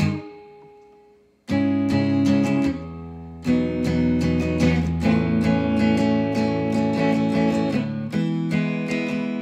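Strummed chords on an Epiphone semi-hollow-body electric guitar. A chord rings out and fades away, then quick rhythmic strumming starts about a second and a half in and carries on, with a short softer stretch around three seconds in.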